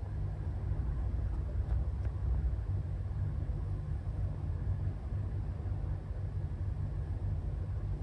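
Steady low rumble over a faint background hiss, with no distinct event.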